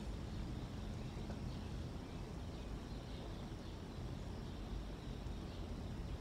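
Steady outdoor ambience picked up by an open-air nest camera microphone: a low rumble with a light hiss, and faint high calls of distant birds.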